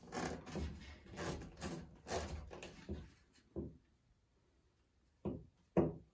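Freshly glued black ABS drain pipe being worked into its fittings by hand: about three seconds of scraping and rubbing plastic, then a pause and two sharp knocks near the end.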